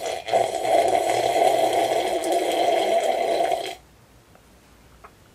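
A person drinking from a glass held up to her mouth, a loud, rough, continuous sound for about three and a half seconds that stops abruptly.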